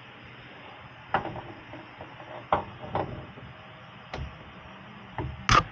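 A ratchet and socket knocking and clinking against the metal of the rear hub and suspension, with about six uneven knocks, some ringing briefly. The loudest knock comes near the end.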